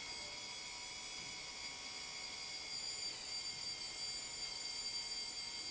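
Hydraulic pump motor of a JDM-196 RC recovery truck running with a steady high whine as the flatbed slides back and tilts down under load.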